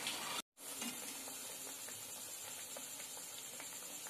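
Cabbage vadas deep-frying in hot oil, a steady sizzle, with a brief cut to silence about half a second in.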